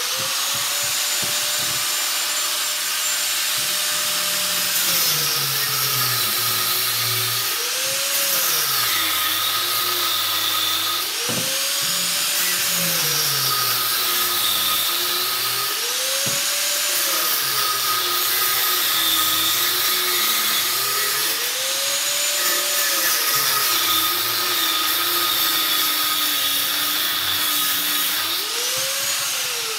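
Small electric angle grinder running as it grinds through the side of a fan motor's casing. Its pitch sags and recovers again and again as the disc bites into the metal and eases off.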